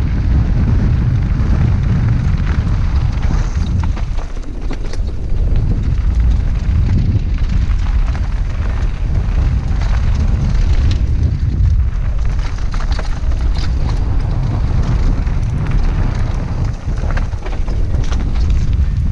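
Wind buffeting the rider-worn camera's microphone during a fast mountain-bike descent, a loud continuous low rumble, with tyres crunching over loose rock and scattered sharp rattles and clicks from the bike on the rough trail.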